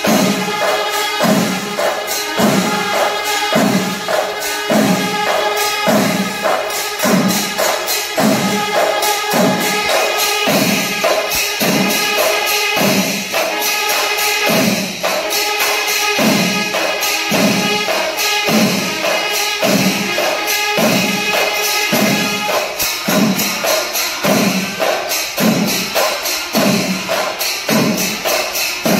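Kerala temple percussion ensemble of about a hundred players: chenda drums beating a heavy, even pulse about once a second under dense clashing of elathalam hand cymbals, with curved brass kombu horns holding long notes over the rhythm.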